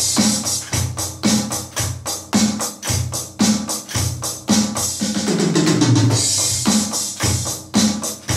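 Electronic drum kit played with sticks: a steady beat of drum and cymbal hits, about two strong hits a second, with a busier falling run of drum hits about five seconds in.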